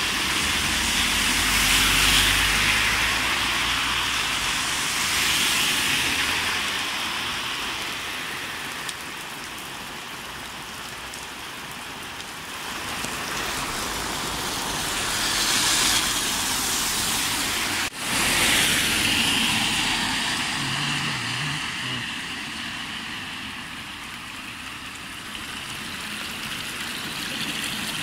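Heavy rain hissing steadily on a flooded road, with cars swishing through the standing water as they pass, a few times.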